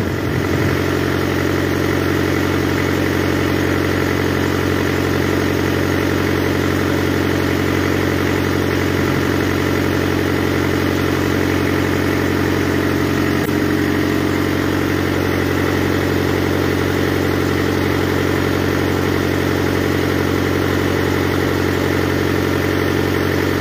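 A vehicle engine running steadily at idle, a constant even hum with no change in speed.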